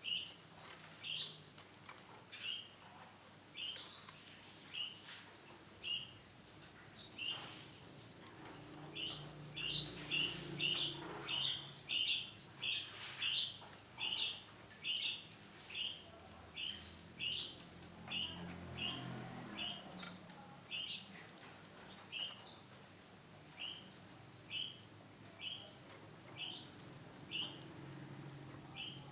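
Female Isabel canary giving short, repeated chirp calls, about one to two a second, coming fastest in the middle.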